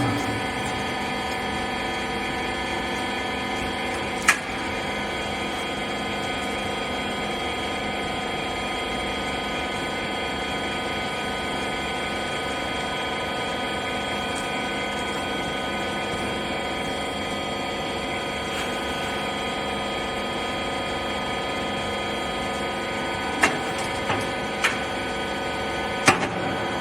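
Hydraulic rag baler machine running, its pump motor giving a steady hum made of several fixed tones. There is a sharp knock about four seconds in and a few more near the end.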